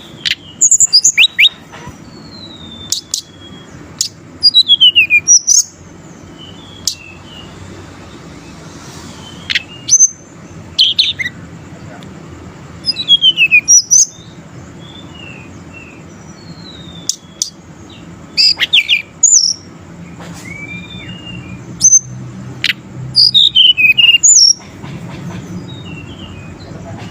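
Tledekan gunung songbird singing in repeated loud bursts of high, quick chirps and downward-sweeping whistled notes, with short pauses between phrases.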